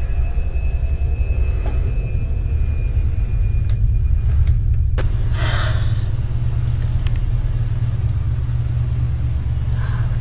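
A loud, steady deep rumble, with a few faint clicks and a brief hiss about halfway through.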